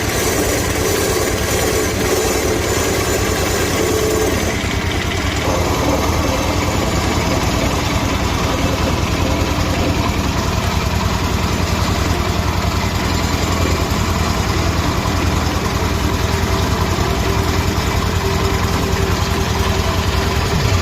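A small engine or motor running steadily at a constant speed, its sound thinning slightly about four and a half seconds in.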